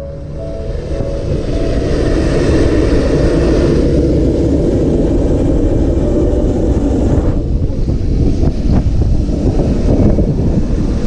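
Loud steady machine rumble with a windy hiss, like engine or aircraft noise on an airport ramp; the hiss fades about seven seconds in while the rumble goes on.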